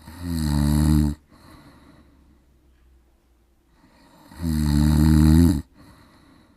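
A man's heavy snoring, two long loud snores about four seconds apart, each swelling then cutting off, with a quieter breath between them.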